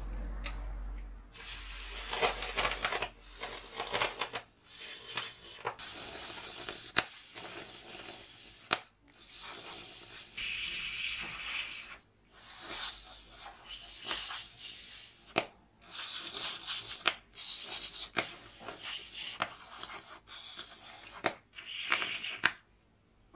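Aerosol carburettor cleaner sprayed through a thin straw nozzle in a dozen or so bursts of hiss, some a second or more long, some short, with brief gaps between, jetting solvent onto the metal gears and plastic gear housing of a cordless drill gearbox to strip off old grease.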